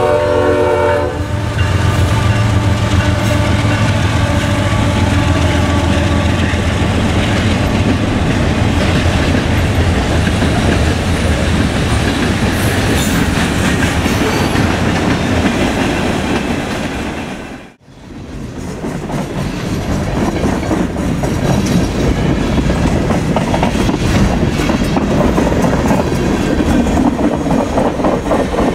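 Freight train passing close by: the tail of a diesel locomotive's horn chord fading out about a second in, the low steady running of the Union Pacific locomotives, then the rumble and clickety-clack of freight cars rolling past. The sound cuts out briefly a little past the middle, then a freight's cars go on clattering by.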